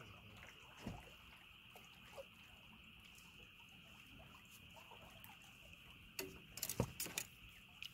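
A faint, steady, high-pitched chorus of night-calling animals at the water's edge, with scattered small clicks. About six seconds in comes a cluster of louder sharp clicks and knocks.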